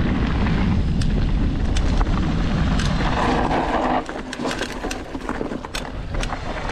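Mountain bike ridden down a rough trail: steady low rumble of wind and tyres with the chain and frame rattling and clicking over bumps. The rumble drops sharply about four seconds in, leaving the rattles more apparent.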